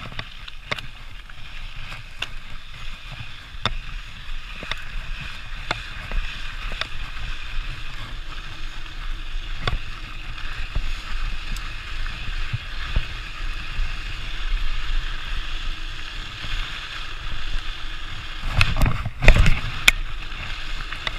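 Mountain bike rolling fast over a rocky dirt trail: a steady rush of tyre and wind noise with scattered clicks and rattles from the bike, and a few heavy thumps near the end as it hits bumps.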